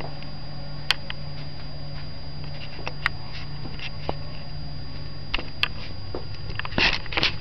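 Handling noise from a handheld camera: scattered small clicks and knocks over a steady low hum and a constant high whine. Near the end comes a brief rustle close to the microphone.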